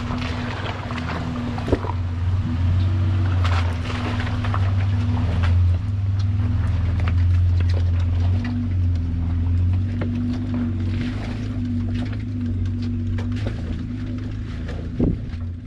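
Toyota Land Cruiser engine running with a steady low drone as the truck crawls past and away up a rocky trail. Its tyres crunch and knock over loose stones, with a few sharp clacks.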